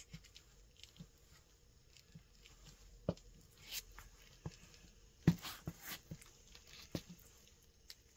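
Scattered soft taps and scuffs of rubber-soled New Balance 574 sneakers stepping on a hard floor, the sharpest tap about five seconds in.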